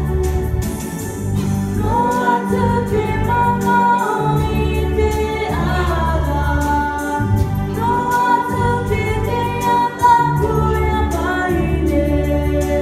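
A woman sings a hymn through a microphone over sustained keyboard chords, her voice entering about two seconds in.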